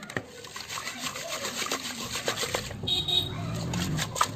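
Raw fish pieces being rubbed and tossed with coarse rock salt against the rough inside of an unglazed clay pot: a gritty scraping with many small irregular clicks, as the salt and pot wall scour off the leftover scales.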